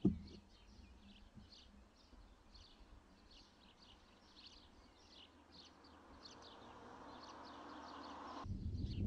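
Small birds chirping, short high calls repeating several times a second. Over the last few seconds a rushing hiss swells, then cuts off suddenly near the end and gives way to a louder low rumble.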